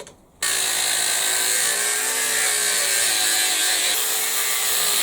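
A power tool cutting aluminium, starting abruptly about half a second in and running steadily with a high hissing noise over a faint steady hum.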